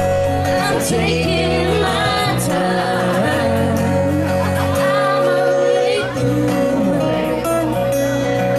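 Live duo music: a woman singing over electric bass and acoustic guitar, the bass holding low notes that change every second or two.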